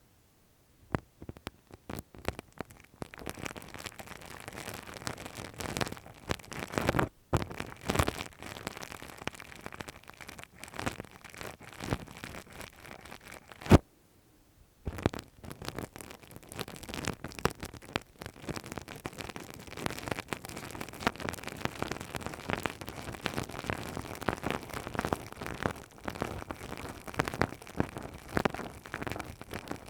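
Close-up ASMR ear-cleaning sounds: a tool scraping and rubbing at the microphone's ear, a dense run of crackles and scratches. It stops briefly twice, the longer pause about halfway through, just after a sharp click.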